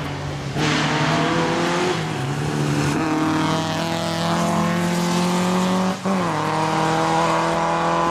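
Racing car engine running at high revs, a steady pitch with a hiss over it. It shifts slightly about two seconds in and dips briefly about six seconds in.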